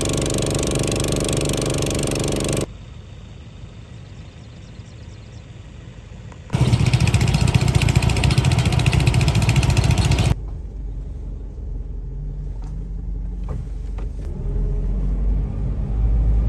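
An engine running, in abruptly cut segments: loud for the first few seconds and again in the middle, quieter in between and towards the end.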